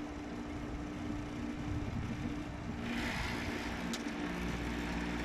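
Fedders window air conditioner running on low cool: a steady motor hum with the grille rattling. About three seconds in, a louder rush of air joins it, and there is a single sharp click about a second later.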